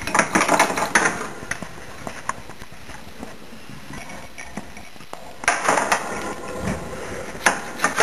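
Hollow plastic toy ball with holes clattering and rattling as a budgie knocks at it: a quick run of clicks in the first second, another a little past the middle, and a single sharp click near the end.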